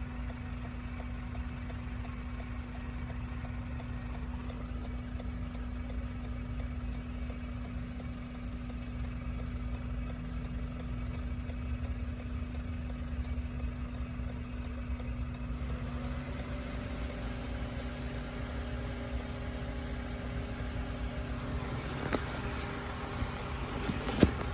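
Steady low mechanical hum with a constant tone. About sixteen seconds in, a second, higher hum joins it, and a couple of sharp clicks come near the end.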